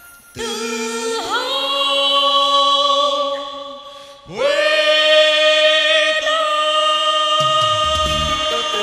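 A man and a woman singing a duet with backing music, holding two long notes, the second starting about four seconds in: the closing notes of the song. Low drum beats come in near the end.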